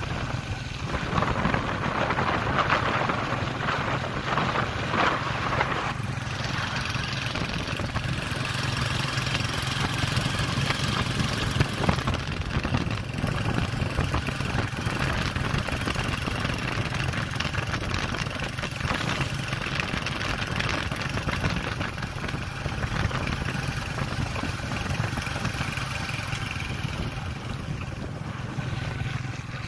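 A vehicle engine running steadily on the move, with wind rushing over the microphone, heaviest in the first few seconds.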